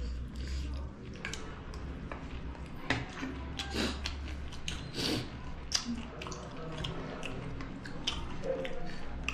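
Close-miked chewing and mouth sounds of two people eating, with scattered sharp clicks of metal spoons and forks against plates.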